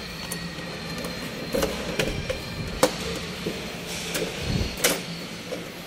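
Key working a stainless-steel door-knob lock and the wooden door being unlatched and opened: a run of sharp metallic clicks and rattles, the loudest about three seconds in, with a dull knock near the end.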